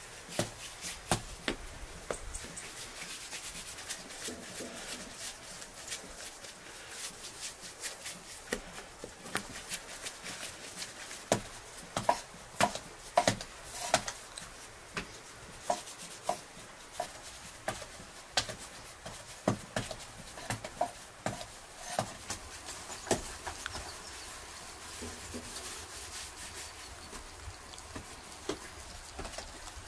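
Hands dividing and shaping bread dough into balls on a floured wooden board: soft rubbing with many irregular pats and taps of dough and hands on the wood.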